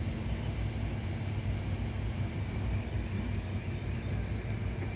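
Steady low rumble of an idling engine, with a faint steady hum.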